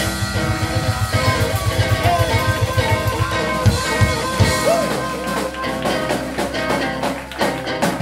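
Live electric blues band playing: electric guitar, bass and drums with harmonica. A fast pulsing low beat drives the first half, then the band plays on in sustained chords.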